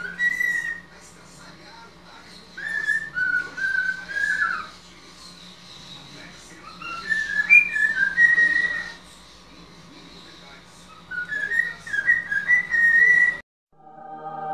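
Pet cockatiel whistling a tune in four short melodic phrases, the pitch stepping and wavering up and down. It stops abruptly near the end, and soft music starts.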